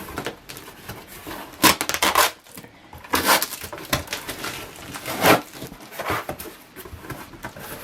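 Packaging of a boxed camcorder being opened and pulled apart by hand: cardboard and plastic handled in several short, loud surges of noise, the strongest about two seconds in, at about three seconds, and just past five seconds.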